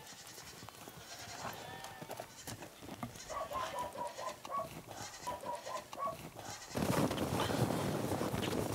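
Sheep bleating, with a run of short repeated calls in the middle. About seven seconds in, a steady rush of wind on the microphone takes over.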